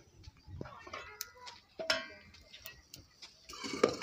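Scattered light metallic clinks and taps of steel cookware, then near the end a steel ladle stirring and scraping in a steel cooking pot, a busy clatter.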